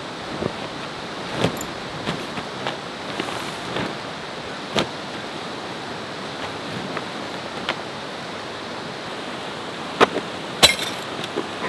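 Steady rush of a fast-flowing river, with rustling and handling of tent fabric and a few short sharp clicks and knocks, the two loudest about ten seconds in.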